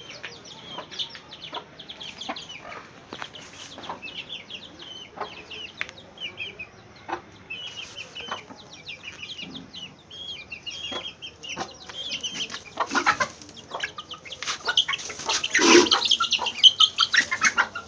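Desi chickens clucking, with many short, high chirps running throughout. Louder scuffling noises come in over the last few seconds.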